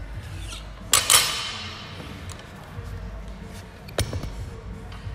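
Barbell loaded with rubber bumper plates clanking as it is handled: a sharp metallic double clank about a second in and a single clank about four seconds in.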